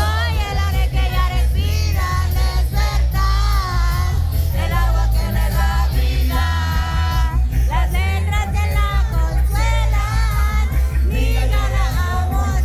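Live concert music: singing over heavy, continuous bass, as played through a hall's sound system.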